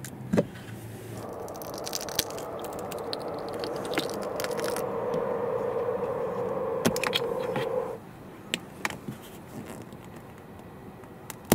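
Old dash camera and its adhesive mount being removed from a car windshield. A sharp plastic click as the camera unclips, then several seconds of steady scraping as the mount is worked off the glass, then small scattered clicks and rubbing as the power cable is pulled from the headliner edge.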